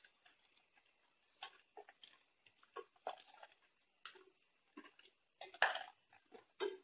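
Wooden spatula tapping and scraping against a stainless steel saucepan as whole tomatoes in a little water are turned over: faint, irregular knocks, the loudest about two-thirds of the way through.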